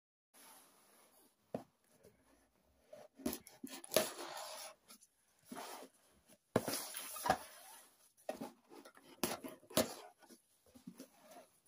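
A package being handled and unpacked: irregular rustling and scraping of packaging, with sharp clicks and knocks, the loudest about four seconds in and again around seven and ten seconds.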